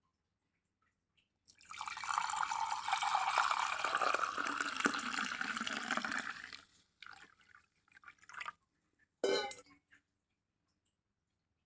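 Liquid pouring steadily for about five seconds, then a few short, separate splashes.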